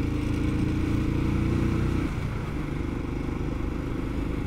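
Motorcycle engine running at high road speed with three riders aboard. About two seconds in, its note drops slightly and it gets a little quieter.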